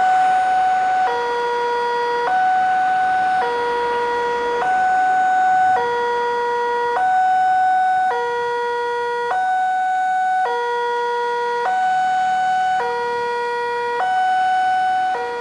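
Railway level-crossing warning alarm: an electronic two-tone signal alternating between a higher and a lower pitch, each held a little over a second, warning that the crossing is closed.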